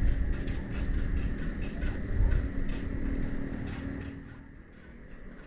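Crickets chirping in a steady high chorus over a low outdoor rumble, which fades away about four seconds in.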